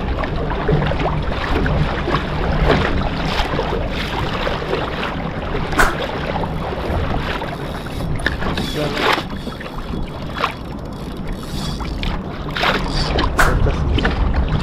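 Water splashing against a kayak's hull, over a steady low rumble of wind on the microphone, with irregular sharp knocks and splashes.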